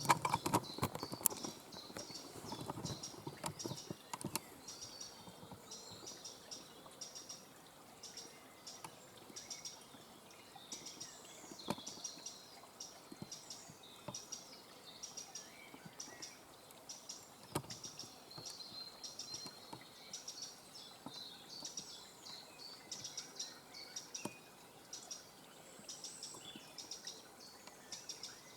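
Eurasian wren giving repeated short, high alarm calls, agitated by a person close to where its nest is thought to be. Rustling in the first few seconds and a few faint clicks of handling.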